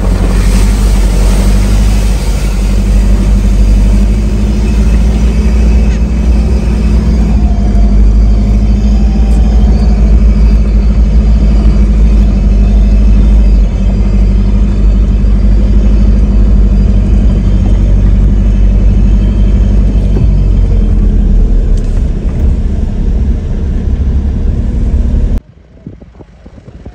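Off-road vehicle driving: a loud, steady low rumble of engine and tyres that cuts off abruptly near the end.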